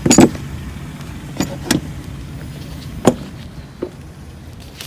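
Several sharp knocks and clatters of discarded items being handled in a dumpster, about five in all, the loudest at the very start and about three seconds in, over a steady low rumble like a vehicle running nearby.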